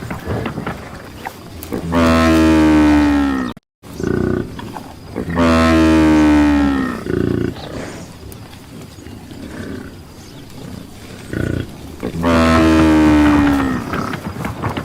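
Buffalo lowing: three long, deep calls, each falling in pitch, with a steady background noise between them.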